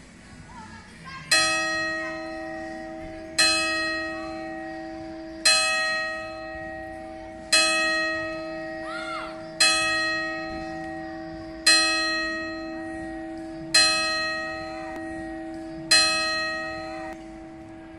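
Hour hammer striking the E4 (Mi4) church bell eight times, about one stroke every two seconds, to sound 8 o'clock. Each stroke rings on with a steady hum into the next.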